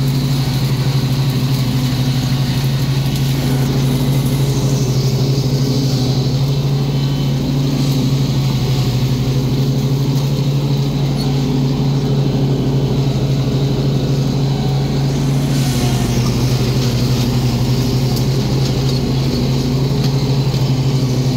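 Stand-on zero-turn lawn mower's engine running steadily as the mower drives across the lawn cutting grass, a constant low drone with no change in speed.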